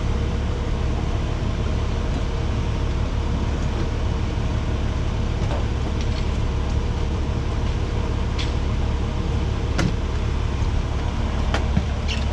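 Fire engine's diesel engine idling steadily, heard from inside the crew cab, as a constant low hum. A few sharp knocks and clicks of gear come in the second half.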